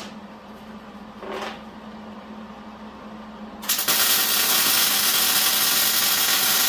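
Welding arc laying a short one-inch bead on the steel loader frame: a steady, loud hiss that starts abruptly about four seconds in and cuts off right at the end.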